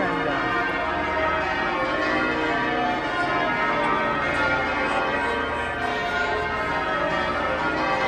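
The ring of twelve church bells at St Paul's Cathedral being change-rung: a continuous peal of overlapping bell strokes.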